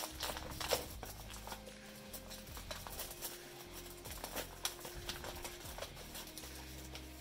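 Brown paper bag crinkling and rustling in irregular crackles as hands open it and dig out a freeze-dried treat.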